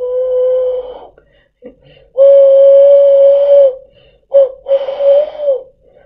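A low, breathy whistle imitating a train whistle, blown in separate blasts: a short one that stops about a second in, a longer held one, then two quick short ones, the last sagging in pitch as it ends.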